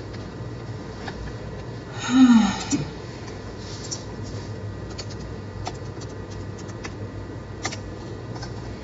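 Scattered light clicks of a computer mouse and keyboard over steady room hiss and hum, with one short vocal sound falling in pitch about two seconds in.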